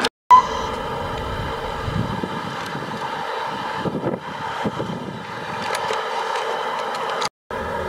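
Tamiya radio-controlled semi-truck running, a steady engine-like hum held on several constant pitches. It cuts out briefly twice, once just after the start and once near the end.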